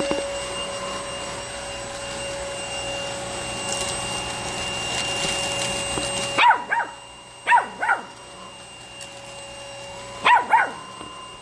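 Cordless stick vacuum running with a steady whine, its noise dropping sharply about six seconds in. A dog then barks in three quick pairs of short barks.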